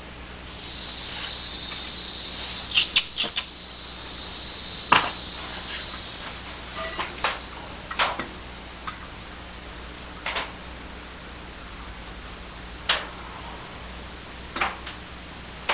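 Hand-held propane cylinder torch hissing into the firebox of a cast-iron wood stove. The hiss starts about a second in and is strongest for the first several seconds, then continues lower, with sharp clicks and knocks scattered through.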